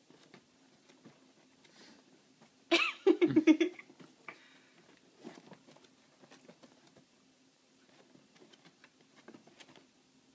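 Light rustling and scattered ticks of a pet rabbit moving in its cage bedding while batting at a string cat toy. About three seconds in, a loud pitched cry lasting about a second cuts across it.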